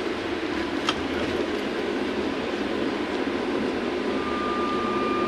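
Cabin noise inside a VMZ-5298-20 trolleybus on the move: a steady rumble, with a sharp click about a second in and a steady high tone that comes in about four seconds in.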